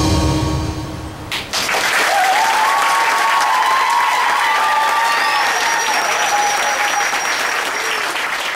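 The music ends, then the audience applauds and cheers, with shouted whoops and a long high whistle near the end.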